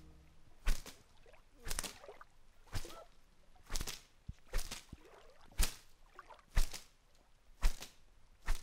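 Swishing rustles of brush and branches, about one a second in a steady rhythm.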